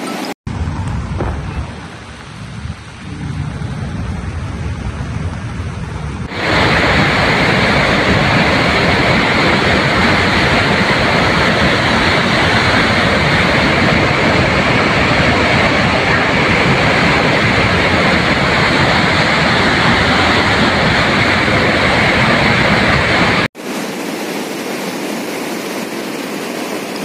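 Rushing floodwater of a muddy river in spate: a steady, loud noise of churning water. It changes abruptly at a few cuts, growing louder and hissier about six seconds in and dropping back near the end.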